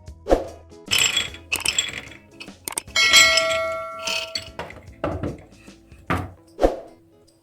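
Dishes and kitchenware being handled: a string of sharp clinks and knocks, one of them ringing clearly for about a second, over soft background music.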